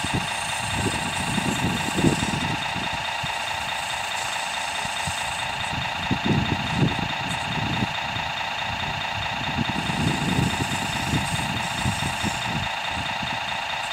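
Radio-controlled model construction machines running with a steady, even mechanical drone like a small engine idling, with irregular low rumbles coming and going.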